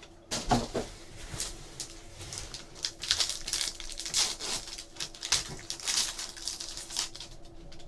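Crinkling, rustling and tearing of packaging as a sealed box of trading cards and its foil packs are opened by hand, in quick irregular crackles.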